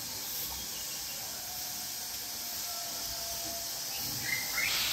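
Turmeric water heating in a kadai, hissing steadily as it nears the boil, a little louder about four seconds in.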